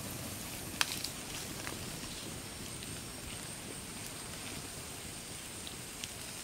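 Wood fire crackling under a bamboo grill: a steady hiss with a few sharp pops, the loudest about a second in. A thin, steady high whine runs underneath.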